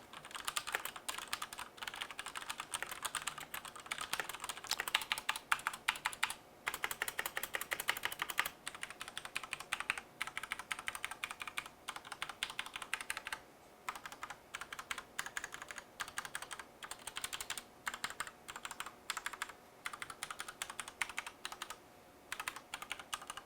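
Fast, continuous typing on a DECK Mantella RGB mechanical keyboard with Cherry RGB black (linear) switches: a dense stream of key clacks, broken by a few brief pauses.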